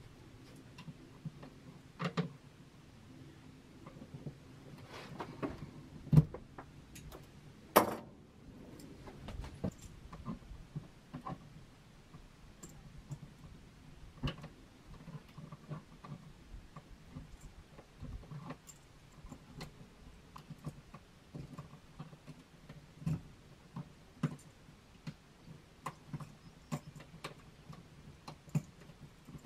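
Scattered clicks and small snaps of hand tools on electrical wire: wire strippers and pliers stripping and bending copper wire at a plastic outlet box, with a few sharper snaps in the first eight seconds.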